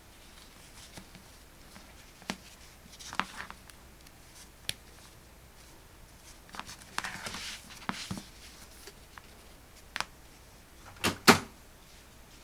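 Handling noises at a workbench: scattered light clicks and taps with short bursts of rustling, and a louder double knock near the end, as the soldering iron and small parts are picked up and set down.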